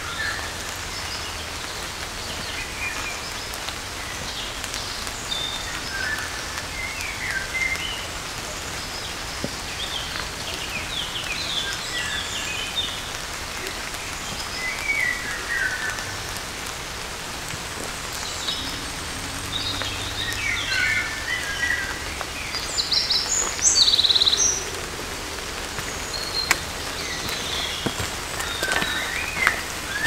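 Light rain falling on woodland foliage, a steady patter, with small birds chirping now and then; the loudest run of chirps comes about three-quarters of the way through.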